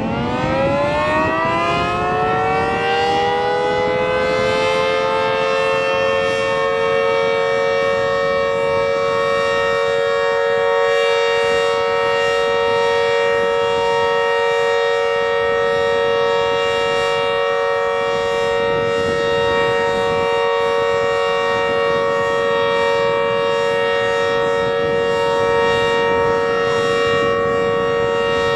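Outdoor warning siren winding up, its pitch rising over the first few seconds, then holding one steady, loud, chord-like tone.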